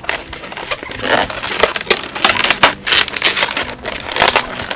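Inflated latex modeling balloons rubbing and squeaking against each other and against fingers as the twists of a balloon animal are pushed and adjusted. It comes as an irregular run of short scrapes and squeaks, close and loud.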